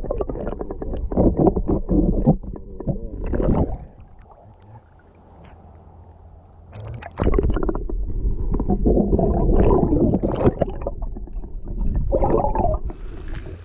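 Muffled rumbling and gurgling of river water heard through a submerged camera's microphone, in two loud stretches with a quieter break from about four to seven seconds in.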